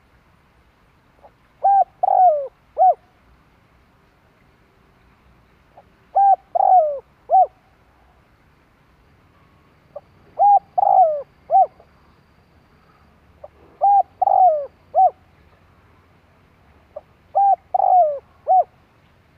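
Spotted dove cooing: five repeated song phrases about every three and a half to four seconds, each a faint lead-in note followed by three coos, the middle coo longer and falling in pitch.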